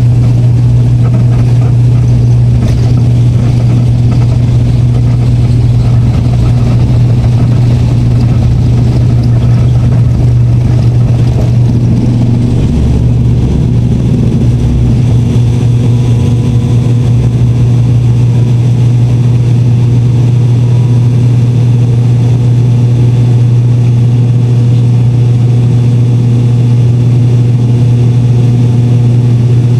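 Wings Air ATR 72's turboprop engines at takeoff power, heard inside the cabin: a loud, steady propeller drone with a deep hum. The low rumble beneath it eases off about halfway through, as the aircraft leaves the runway and climbs.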